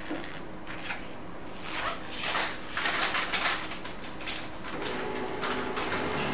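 A wrapped ream of printer paper being handled, its wrapper rustling in irregular bursts for a couple of seconds. Near the end, a laser printer's motor starts up with a steady hum.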